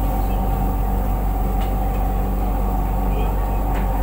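Steady drone and low hum of a restaurant's grill smoke-extraction ducts and fans. A couple of light clicks of tableware come about a second and a half in and again near the end.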